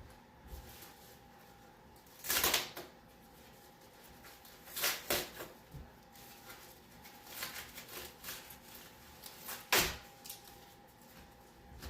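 Plastic packaging being handled and pulled off during unpacking: rustling and crinkling in three main bursts, about two, five and ten seconds in, with smaller handling noises between and a faint steady hum underneath.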